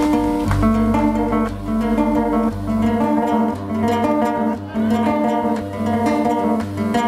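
Guitar music: strummed guitar with a bass line, an instrumental passage leading into a song.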